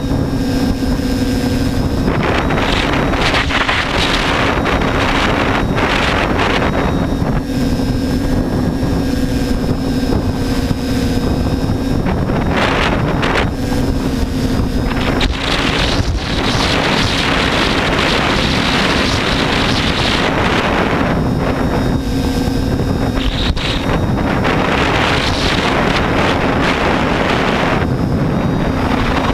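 TBS Discovery quadcopter's motors and propellers humming steadily in flight, heard from the onboard GoPro Hero3, with gusts of wind buffeting the microphone. The hum's pitch wavers slightly with throttle.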